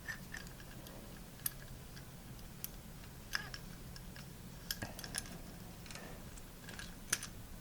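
Scattered light metallic clicks and ticks as a bicycle chain and chain breaker tool are handled and the tool is lined up over a chain rivet.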